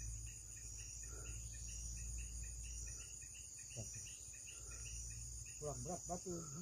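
Crickets and other insects trilling in a steady faint chorus, with a quicker pulsing chirp beneath the high trill. A few short pitched calls, too brief to name, come about four seconds in and again near the end.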